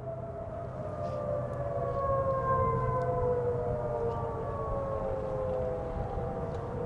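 Federal Signal Modulator 8032B outdoor warning siren sounding its wail, several tones together sliding slowly down in pitch. It grows louder toward the middle and then eases slightly.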